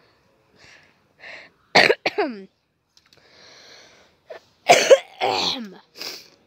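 A person coughing close to the microphone: two soft throat-clearing sounds, then a loud bout of coughs about two seconds in and another about five seconds in.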